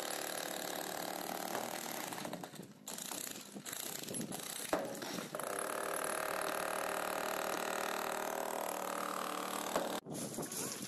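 Gaochang 20 kg electric demolition breaker hammering concrete: a steady, rapid mechanical hammering that breaks off abruptly about three seconds in and again near the end.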